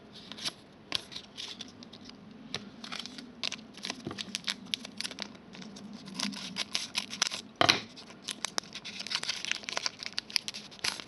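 Trading card pack wrapper being torn open and crinkled in the hands, a busy run of crackling and ripping with one sharp, loud rip about two-thirds of the way through. Cards are being flipped at the start.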